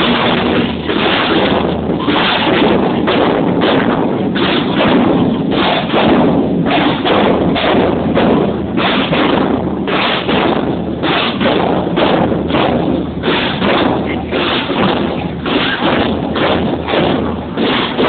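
Marching drums, snare and bass drum, beating a steady marching rhythm of a few strokes a second.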